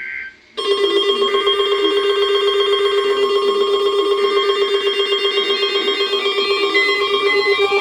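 Weather radio warning alarm tone: a loud, steady electronic alert with many overtones and a rapid pulsing flutter. It starts about half a second in, right after the SAME digital header burst, and marks a weekly test of the alert system.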